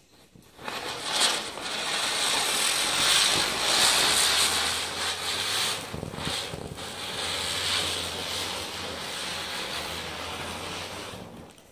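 Ground spinner firecracker (chakri) whirling on concrete and hissing steadily as it throws off sparks. It starts about half a second in, dips briefly around the middle and cuts off near the end.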